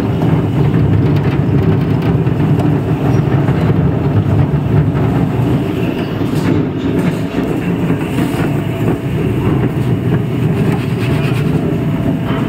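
Chura (flattened rice) making machine running steadily: a loud, continuous mechanical noise, mostly low-pitched, without let-up.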